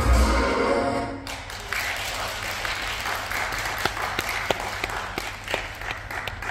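Electronic dance music stops about a second in, and then an audience applauds, with individual sharp claps standing out.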